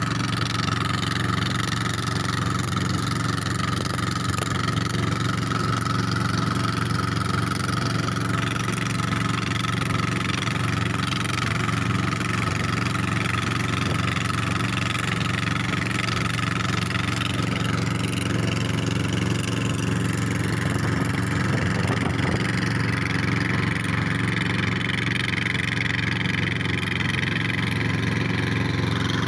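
Upright two-cylinder dompeng diesel engine of a wooden river boat running steadily at speed, over a constant hiss of water and air rushing past.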